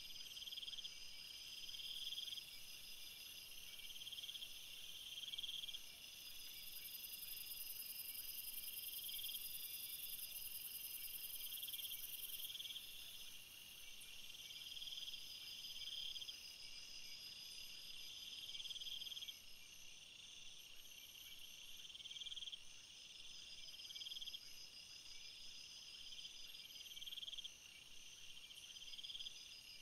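Faint, high-pitched chirping trills from insects, several at different pitches overlapping, each repeating in bursts about a second long with short gaps.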